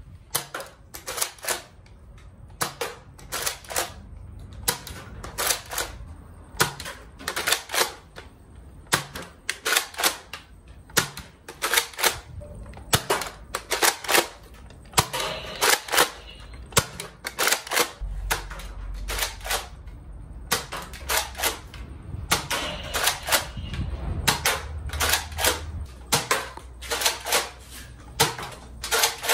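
Nerf Modulus Recon MKII spring-powered foam dart blaster being primed and fired again and again: a long series of sharp plastic clacks and pops, often in close pairs.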